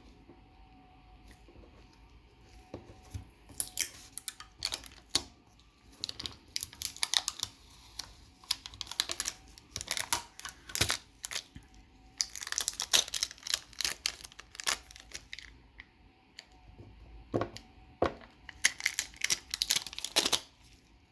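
Bursts of quick clicks and scratching from poking and scraping at the paper label on a laptop hard drive's metal cover, hunting for a screw hidden beneath it.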